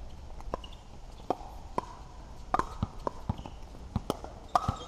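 Pickleball play: paddles striking the hollow plastic ball and the ball bouncing on the court, about a dozen sharp, irregular pops.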